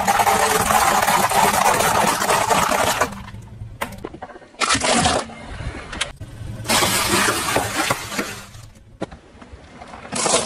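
A car tyre rolling over and crushing dry penne pasta: a dense crackling crunch for about three seconds over the car's low engine hum. It is followed by several shorter crunches, each cut off abruptly, as the tyre crushes other small objects.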